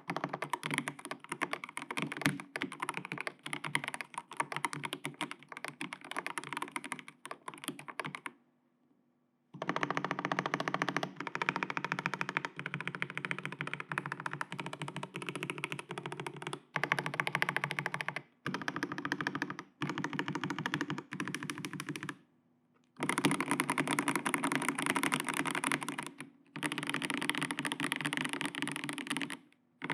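Fast, steady typing on a Kishy Signature custom mechanical keyboard with factory-lubed Momoka Flamingo switches, an FR4 plate and TEX ADA keycaps. Keystrokes come in dense runs, broken by a pause of about a second near the first third and two brief gaps later on.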